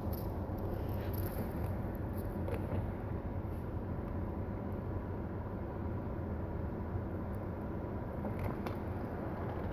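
Steady low rumble of motor vehicles, with no sharp events.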